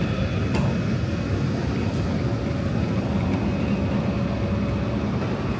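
Steady low rumble of a large workshop hall, from ventilation and running machines, with a faint steady hum above it.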